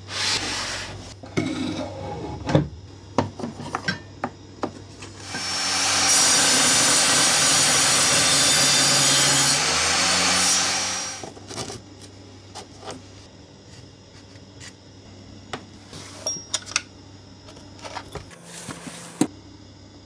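Scattered knocks and rubs of the wooden crosscut sled being moved on its tracks, then about five seconds in a power saw runs and cuts wood for about five seconds before winding down. Small wooden knocks follow.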